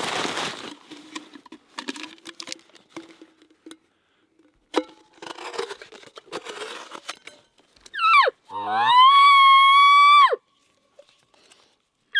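Rustling and clicking as a canvas backpack is rummaged and a Pringles can is handled. About eight seconds in, a man blows an elk call through the Pringles can. It starts with a short falling squeal, then slides up to a high whistle held for about a second and a half before it drops off, and a second call begins at the very end.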